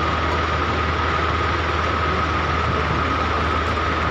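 Massey tractor engine running steadily, powering a tractor-mounted post hole digger auger in hard, stony soil, with a low drone and a steady high whine.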